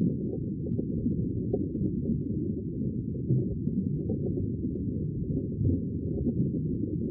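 Sea water heard heavily muffled: a steady low rumble with the higher sounds cut away, and a few faint small clicks now and then.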